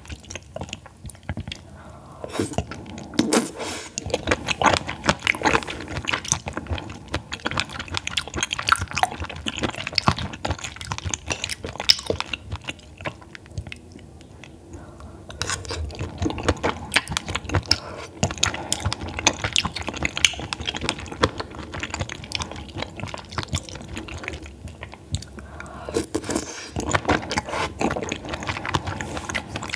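Close-miked chewing of raw baby squid sashimi: a dense run of small irregular mouth clicks. It eases off for a couple of seconds in the middle, then picks up again.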